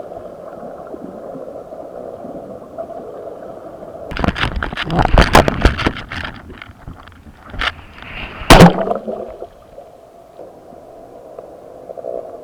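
Muffled water noise picked up by a camera submerged in the sea. About four seconds in comes a rapid burst of knocks and clatters, and a little past the middle a single loud knock, the loudest sound here.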